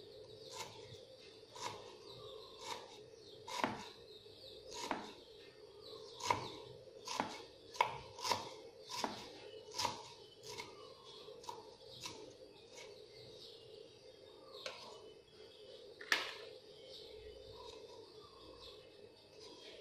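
Kitchen knife slicing fresh ginger into thin strips on a wooden chopping board: a slow, uneven series of knocks, roughly one cut a second, that stops about sixteen seconds in.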